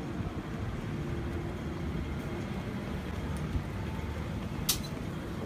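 Street traffic noise: a steady low rumble of passing vehicles, with a short sharp hiss about four and a half seconds in.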